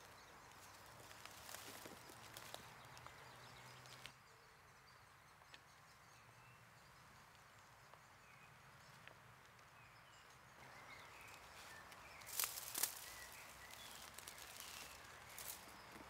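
Faint footsteps rustling and crackling through dry leaf litter and ivy on a woodland floor. They pause for several seconds in the middle, then resume with a couple of louder crackles near the end.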